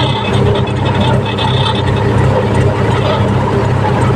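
Compact excavator's diesel engine running steadily.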